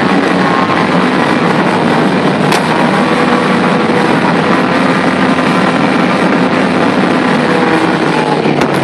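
Personal watercraft running at speed over open water: a steady engine drone under a loud, constant rush of water spray, with a couple of brief clicks.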